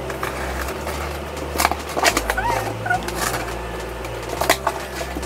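A box cutter slitting the packing tape along a cardboard box's seam: scraping and several sharp rips of the tape, with a couple of short squeaks in the middle.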